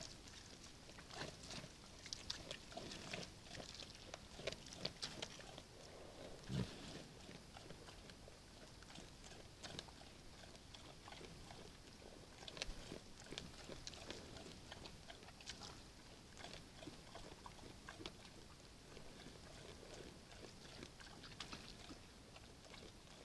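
A bear feeding at a bait box: faint crunching and clicking of chewing, with one dull thump about six and a half seconds in, over a steady hiss.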